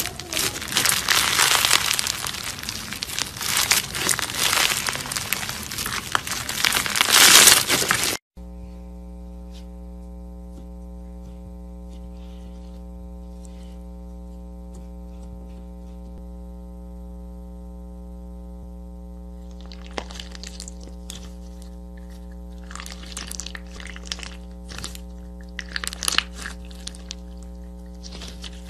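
Crunchy teal slime squeezed and pressed: a dense, loud crackling crunch for about the first eight seconds. After a sudden cut, a steady electrical hum runs under faint sticky clicks and pops as fingers press clear slime filled with fruit slices and cube add-ins. The pops grow busier over the last several seconds.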